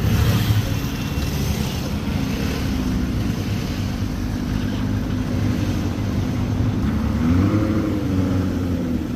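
Lamborghini Urus twin-turbo V8 running at low speed as the SUV pulls through, with a brief rise and fall in revs about seven and a half seconds in.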